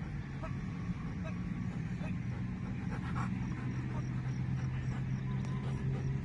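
Faint panting and short high whines from a working-line German Shepherd heeling, over a steady low hum.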